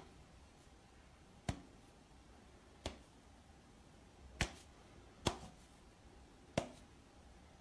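Five sharp, isolated clicks spaced about one to one and a half seconds apart, heard as a finger boops a standing cat's nose, over faint room noise.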